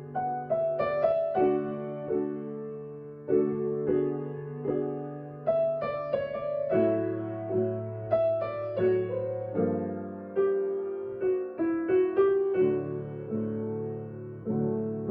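Solo piano playing a slow, gentle piece: chords over held bass notes with a melody on top, each note struck and then fading.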